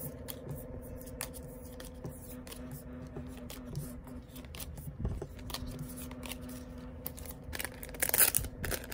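Photocards being handled, shuffled and tapped together on a table with light clicks and scrapes, then a louder crinkling rustle of a clear plastic sleeve near the end as a card is slid out of it.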